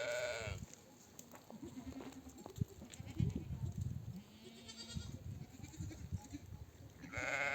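Sheep bleating as ewes and lambs call to each other at suckling time: a loud wavering bleat at the start, a fainter high-pitched one about halfway, and another loud bleat near the end.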